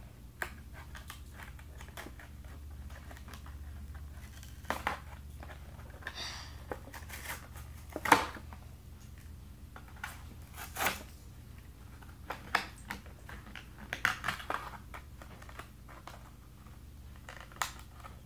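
Hands working at plastic toy packaging, trying to get it open: irregular crinkles, clicks and scrapes, with the sharpest crackle about eight seconds in, over a faint steady low hum.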